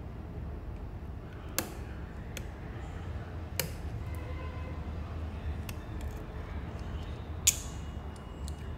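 Small sharp clicks and ticks of a precision screwdriver and tweezers on the inside of an opened iPhone 6S, as the screws of the battery connector's shield plate are taken out. Three louder clicks come about two seconds apart, the last near the end the loudest, over a steady low hum.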